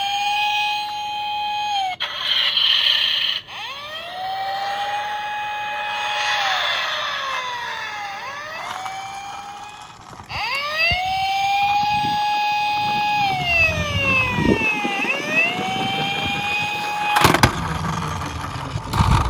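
Electronic toy police-car siren wailing: each call rises, holds a high note and falls again, over and over. Near the end a lower rumbling noise comes in, with a sharp knock.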